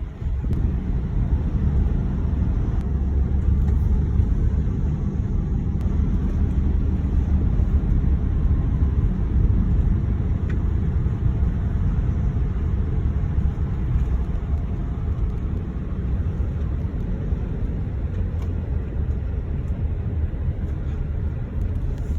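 Steady low rumble of a car on the move, with no pauses or changes in engine pitch.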